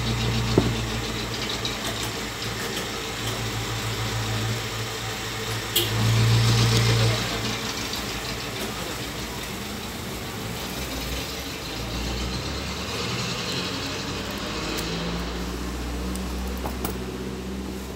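A motor running steadily with a low hum, swelling louder for about a second around six seconds in, with a few small clicks over it.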